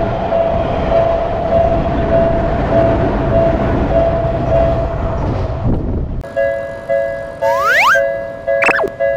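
Train running through a Japanese level crossing, its rumble mixed with the crossing bell's steady kan-kan ringing. About six seconds in, the train noise cuts off suddenly. The crossing bell is left ringing alone in a clean two-tone alternation, and a few sweeping whistle-like cartoon sound effects come in near the end.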